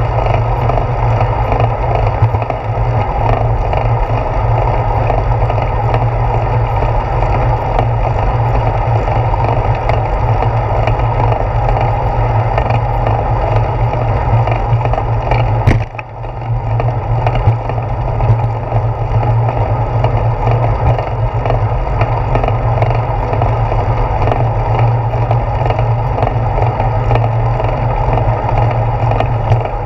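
Steady wind rush and road rumble picked up by a handlebar-mounted GoPro on a moving bicycle, with the tyres rolling on asphalt and light rattling from the bike. A single sharp knock about halfway through, after which the noise dips for a moment.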